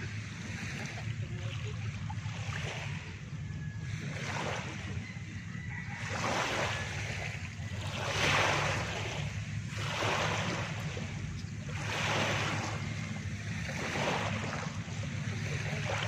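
Small waves breaking and washing up a sandy, pebbly shore, the foamy rush swelling and fading about every two seconds over a steady low rumble.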